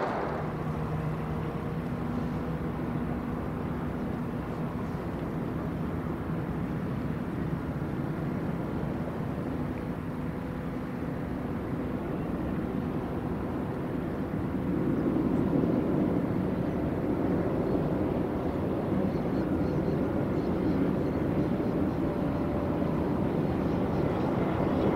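Jet engines of a heavy widebody airliner on approach to land: a steady low rumble with a faint engine hum, growing louder about fifteen seconds in.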